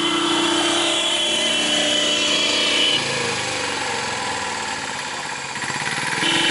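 A vehicle horn held in one long steady blast that cuts off about three seconds in and starts again just before the end, over small engines idling.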